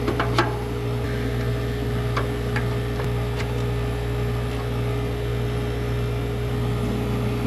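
Vacuum pump running steadily as it pulls a deep vacuum on the air-conditioning refrigerant circuit, a continuous drone with a steady hum. A few light clicks and taps come in the first few seconds.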